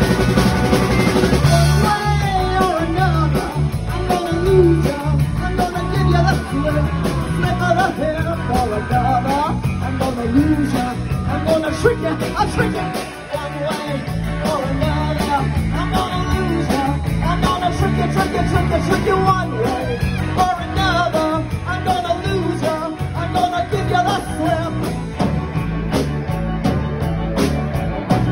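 Live rock band playing loudly: electric guitar and drum kit under a lead vocalist singing, with a short drop in loudness about halfway through.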